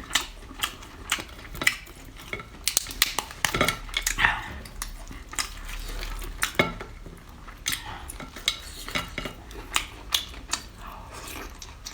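Cutlery clinking and scraping against dishes, many short irregular clinks, as food is scooped and eaten.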